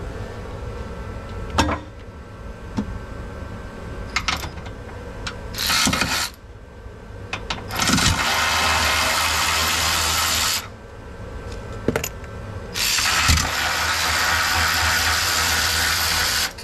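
Cordless electric ratchet run three times to spin out the bolts of the hybrid battery's hold-down brackets: a short burst about six seconds in, a run of about three seconds, then one of about four seconds near the end. A few sharp metal clicks fall between the runs.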